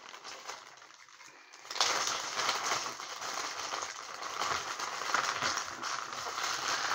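Small plastic zip bag of Lego bricks crinkling as it is handled and opened, with the plastic parts shifting inside; the crackling gets much louder about two seconds in.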